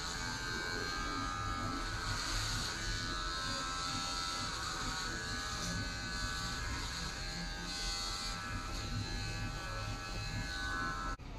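Electric hair clippers buzzing steadily as they trim a beard over a comb.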